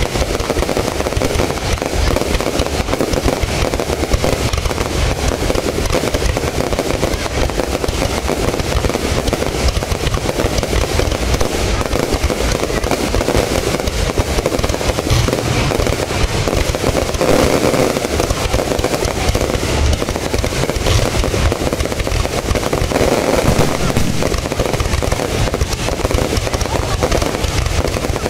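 Fireworks display: a dense, continuous barrage of overlapping bangs and crackles with no break.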